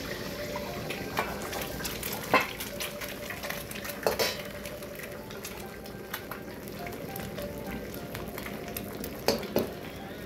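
Two eggs frying in hot oil in a wok, a steady sizzle. A metal ladle clicks against the wok a few times, loudest a little over two seconds in and twice near the end.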